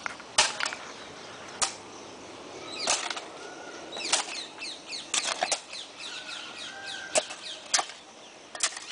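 Hand digging tools, a hoe and a shovel, chopping and scraping into dry, packed earth. The sharp strikes come irregularly, about once a second.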